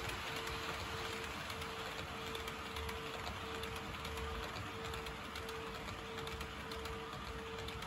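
HO-scale (1/80) model train of passenger coaches rolling along the track: a steady rolling rumble with many light clicks from the wheels over rail joints, under a steady hum.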